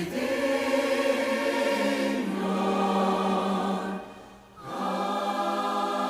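Choir singing long held chords over orchestral accompaniment, with a short drop about four seconds in before the next chord.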